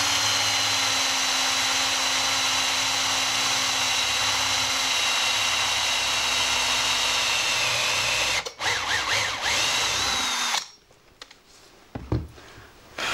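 Makita cordless drill spinning a 20 mm Forstner bit to bore out a knot in a softwood board, running steadily for about eight seconds. It stops briefly, runs again in a shorter burst, then cuts off, with a couple of faint knocks near the end.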